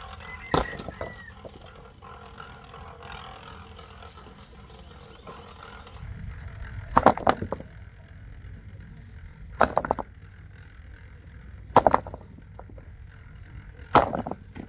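Five sharp knocks, the first about half a second in and the rest roughly two to three seconds apart in the second half, over a steady low rumbling background.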